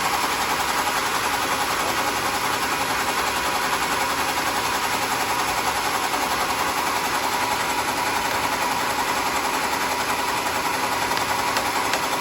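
Sawmill machinery running steadily: an even mechanical hum with a steady high tone and no breaks or changes.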